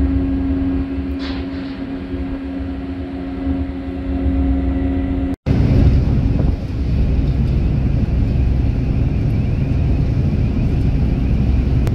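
Steady low drone of a container ship's machinery with a constant hum, and wind rumbling on the microphone. The sound cuts out for an instant about five seconds in and comes back with heavier low rumble.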